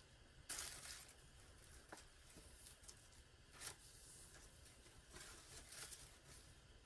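Faint rustling of paper and tissue as a satin ribbon bow is pulled loose from a lace-cut card. There is a louder rustle about half a second in and a few softer ones later.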